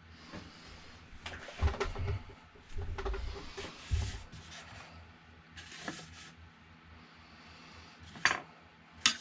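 Hands handling 3D printer parts and tools on a workbench: scattered knocks, light scrapes and clunks, with two sharp clacks near the end.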